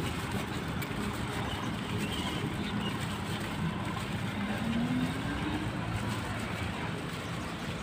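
Steady road-traffic noise, with one vehicle's engine rising in pitch about halfway through as it accelerates.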